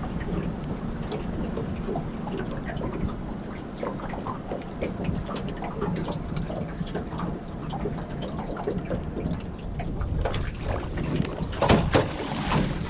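Water lapping and splashing in small irregular patters, with wind on the microphone; the wind gusts grow stronger near the end.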